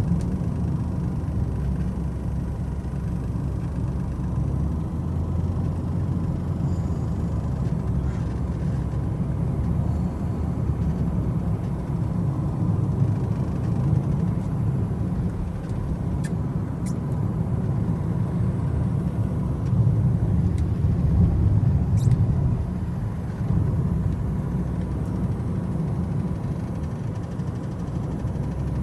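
Car driving at a steady speed, heard from inside the cabin: a steady low rumble of engine and tyres on the road, a little louder about twenty seconds in, with a few faint clicks.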